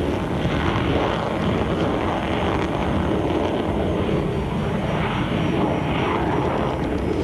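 Loud, steady jet-engine noise of an F-16 fighter taking off and climbing away at full thrust.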